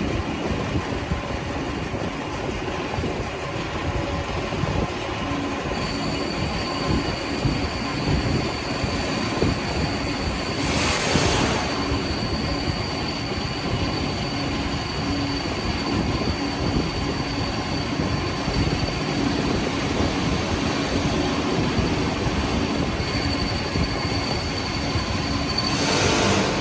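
Eastern CNC C400K lathe cutting metal during a test cut: a steady, dense machining noise with a high steady whine that comes in about six seconds in, and two brief louder rushes of noise around eleven seconds and near the end.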